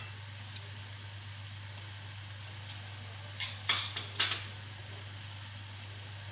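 Mutton and onions sizzling gently in a pot over the flame, with a steady low hum underneath. About three and a half seconds in come three or four quick sharp clinks of utensils.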